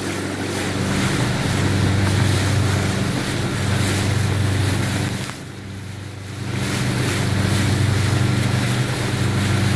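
Small boat's engine humming steadily under way, with water rushing past and wind buffeting the microphone; the sound dips briefly about five and a half seconds in.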